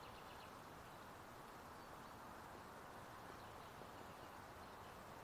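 Near silence: faint steady outdoor background hiss, with a few faint high chirps right at the start.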